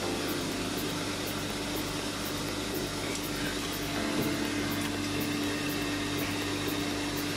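Steady machinery hum with a constant low tone, from running shipboard machinery.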